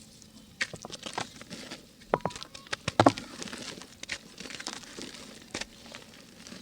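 Dry pink mud (clay chalk) being crumbled by hand, crackling and crunching in a quick run of sharp clicks. It starts about half a second in and is loudest about three seconds in.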